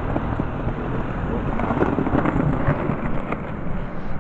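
Steady rumbling noise on the microphone of a handheld camera being carried along a paved street, with faint voices about halfway through.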